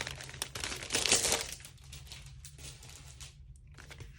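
Packaging crinkling as it is handled, loudest about a second in, then dying down to a few faint rustles.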